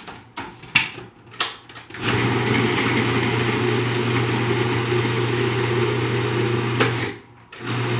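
A Cuisinart food processor's motor running in a long pulse, its blade cutting cold butter into shredded cheddar and flour for a cheese-straw dough. A couple of clicks come first, the motor runs steadily for about five seconds, stops, and starts again near the end.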